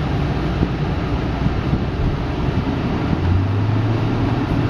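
Steady engine and road rumble heard from inside a car's cabin while driving slowly. A steady low hum joins in about three seconds in.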